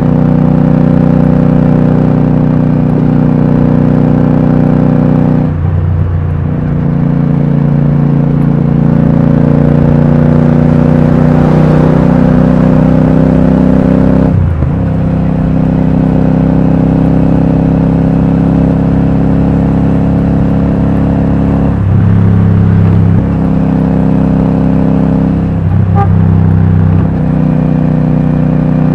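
Royal Enfield Super Meteor 650's parallel-twin engine running through a Rhino Racing V2 aftermarket exhaust with dB killers fitted, heard onboard while cruising. The note is steady but breaks briefly four times where its pitch shifts.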